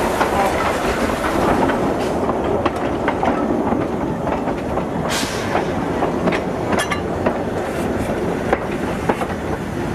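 Small Peckett steam locomotive rolling slowly along the track, heard from on board: a steady running rumble with irregular clicks and knocks as the wheels pass over rail joints.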